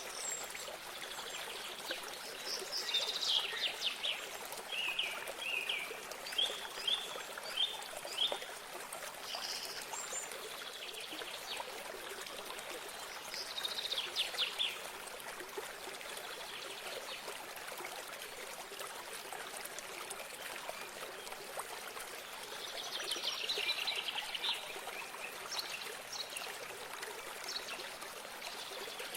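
Running water trickling steadily, with songbirds singing short bursts of high chirping phrases over it, about five or six times.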